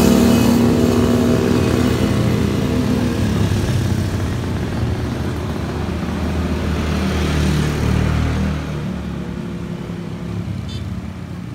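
Motorbikes passing along a street. One engine is loud at the start and fades away, and another swells past about seven to eight seconds in, over a steady traffic hum.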